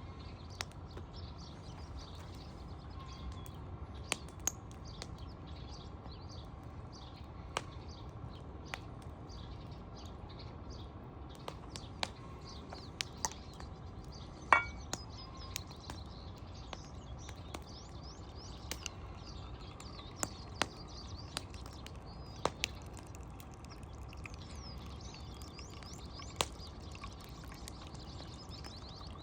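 Birds chirping faintly over a steady low background noise, with scattered light clicks and one sharper, ringing clink about halfway through.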